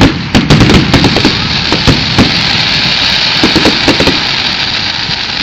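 Fireworks going off: a rapid run of sharp bangs and crackling pops, densest in the first two seconds and thinning out, over a steady hiss.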